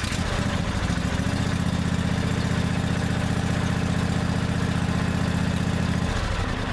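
Husqvarna YTH2148 riding mower engine running steadily just after being started. It is freshly filled with new oil and being run briefly to draw the oil through and check for leaks. Its note shifts about six seconds in.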